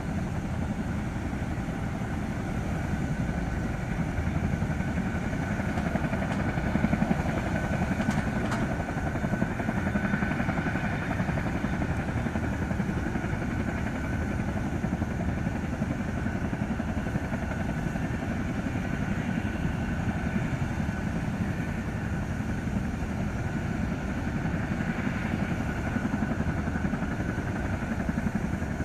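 Boeing CH-47F Chinook's twin turboshaft engines idling: a steady turbine whine over a low rumble.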